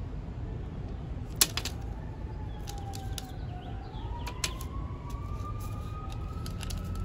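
A siren wailing, its pitch slowly falling and rising, starting about two seconds in over a low steady rumble. A sharp click about one and a half seconds in, and a fainter one later.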